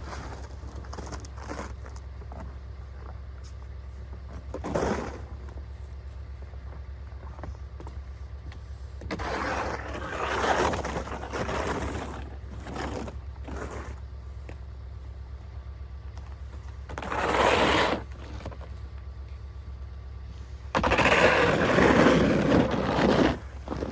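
Snow being scraped and shovelled, in several separate scraping strokes with the loudest near the end, over a steady low engine drone.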